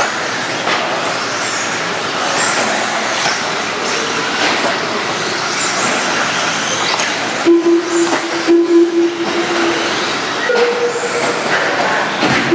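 Several electric 1/10-scale modified RC buggies racing on a dirt track: high-pitched motor whines rising and falling over a dense noise of tyres on dirt. A steady, horn-like tone sounds twice about two-thirds of the way in, then a higher tone briefly near the end.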